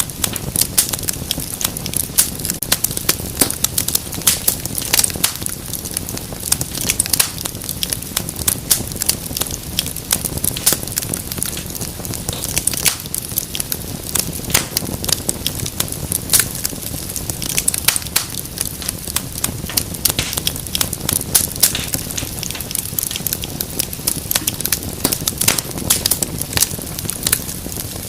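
Wood fire crackling in a fireplace: a steady stream of many sharp crackles a second over a soft, low rumble of the flames.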